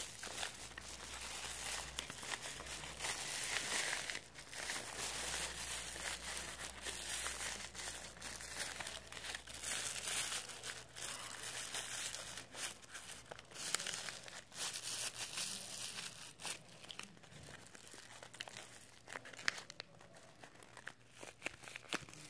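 Paper crinkling and rustling with many small crackles as hands fold and squeeze a stuffed paper squishy, louder in the first half and quieter after.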